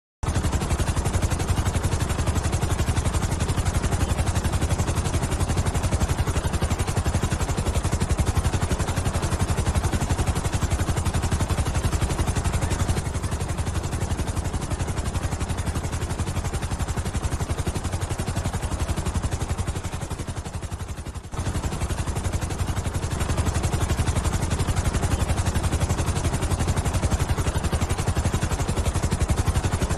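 Helicopter in flight: the rapid, even beat of the main rotor blades over a steady engine whine. The sound sags slightly around twenty seconds in and drops out for an instant at about twenty-one seconds, then carries on unchanged.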